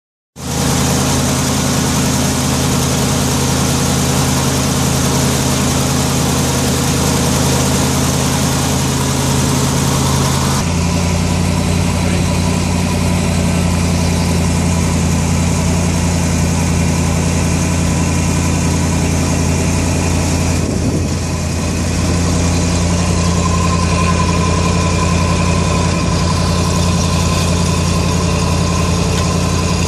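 Diesel-era medium-duty dump truck engine, a 1989 Ford F800, running steadily at idle. About ten seconds in its note changes and settles at a slightly higher speed. From a little past twenty seconds a steady whine joins it while the hydraulic hoist tips the dump bed up.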